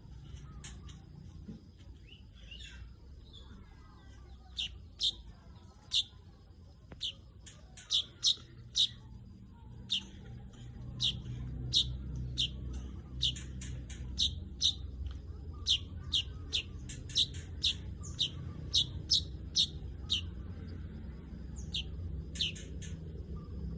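Weaver bird (manyar) giving short, sharp 'cret' call notes, repeated irregularly about once or twice a second, over a steady low rumble.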